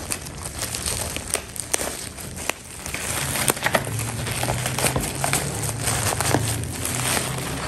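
Grey plastic mailer bag crinkling and tearing as it is ripped open by hand, with a run of sharp crackles.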